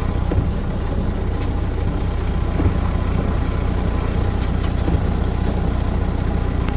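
Heavy rain drumming on a truck, with a few sharp ticks of hail striking the body, over the steady low hum of the truck's idling engine.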